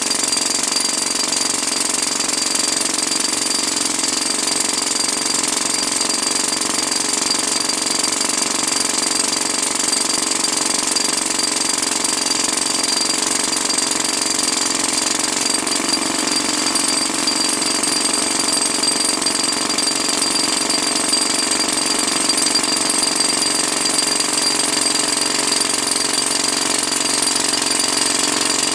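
TEISAKU TRD-350D hydraulic attachment drill working, a loud percussive hammering that runs steadily without a break.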